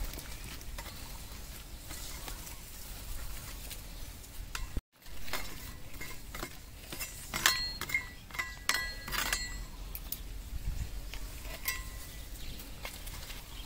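Metal spoon stirring and scraping cauliflower in a steel wok, clinking against the pan. About halfway through comes a quick run of louder clinks with a short metallic ring.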